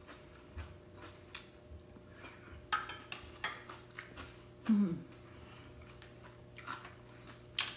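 Eating at the table: a metal spoon clinking and scraping now and then against a small ceramic bowl. About halfway through there is a short falling vocal sound from the eater.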